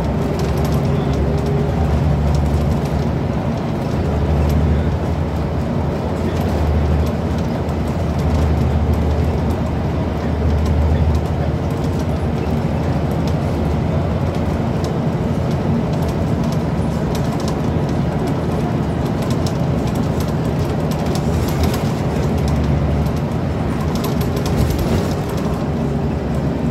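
Scania CN94UB Omnicity single-deck bus under way, heard from inside the passenger saloon: a steady diesel engine drone with road noise, and short rattles and clicks from the bus interior throughout.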